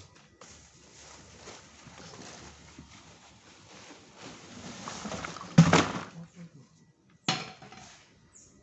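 Handling and unpacking noises: a few seconds of soft rustling, then two sharp knocks, the first and louder about five and a half seconds in, the second about seven seconds in.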